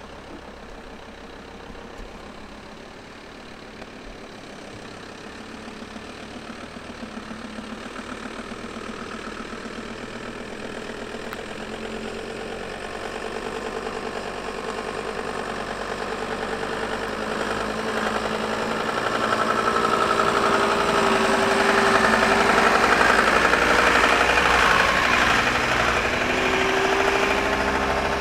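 VW T4 Syncro van's engine running as the van drives slowly closer along a dirt track. It grows steadily louder, is loudest about three quarters of the way through, then eases off slightly.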